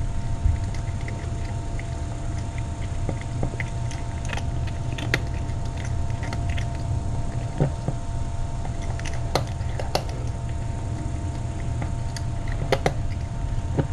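A cat chewing and crunching food, irregular sharp clicks of eating, over a steady low hum.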